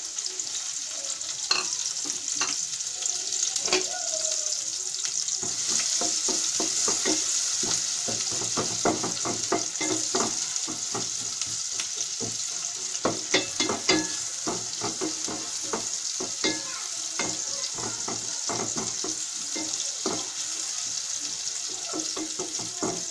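Sliced onions sizzling steadily in hot oil in a stainless steel pot, with a wooden spoon clicking and scraping against the pot as they are stirred, the stirring busiest from about five seconds in.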